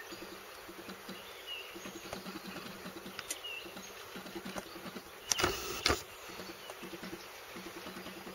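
Open-air ambience with a few faint bird chirps over a low, uneven fluttering rumble. About five seconds in, a loud bump lasting under a second, opening and closing with a sharp knock.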